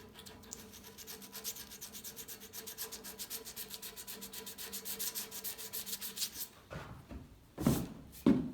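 Rapid back-and-forth rubbing, like hand sanding or scrubbing, at about eight strokes a second; it stops about six and a half seconds in. Two heavy thumps follow near the end.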